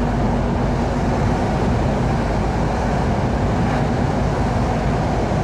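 Steady engine and road noise of a long-haul truck driving, heard inside its cab.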